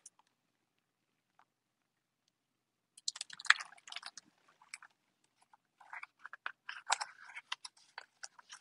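About three seconds of near silence, then a hardcover picture book being handled and its paper pages turned: irregular rustling and small clicks.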